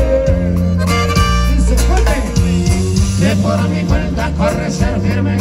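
Live banda music with accordion: a tuba playing steady low bass notes under trumpets, trombones and an accordion, with drums keeping the beat, in an instrumental passage heard from the crowd.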